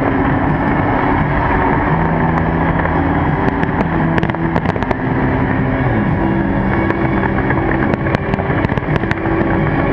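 Large fireworks display heard through an overloaded camera microphone: a continuous dense rumble of bursts, with runs of sharp crackles about halfway through and again near the end. Steady held tones sound underneath.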